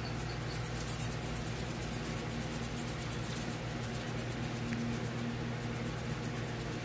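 Plastic seasoning shaker shaken over a bowl of raw chicken wings, a faint quick rattle of spice over a steady low hum.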